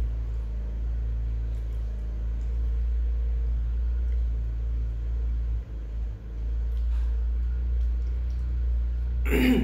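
A steady low rumble, with a brief louder sound near the end.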